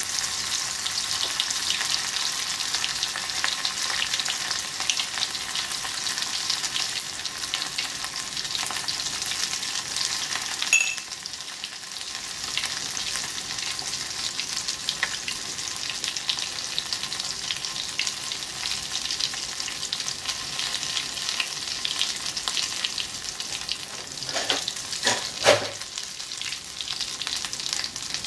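Poha-coated rohu fish frying in hot oil in a kadai: a steady, crackling sizzle. A sharp click comes about eleven seconds in, and a short louder knock near the end.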